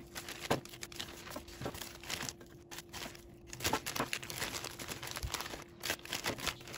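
Clear plastic freezer bag crinkling and rustling in irregular crackles as frozen börek rounds are slid into it by hand.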